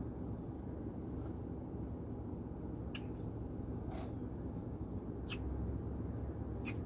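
Quiet steady hum of a car cabin, with a few faint clicks as an iced coffee in a plastic cup is sipped through a straw and handled.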